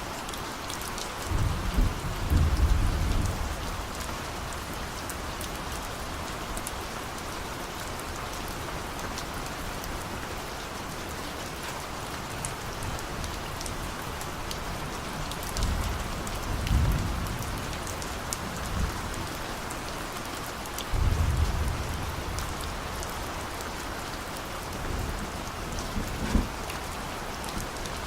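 Steady rain falling, with fine drop patter throughout, while distant thunder rumbles low about four times, loudest near the start.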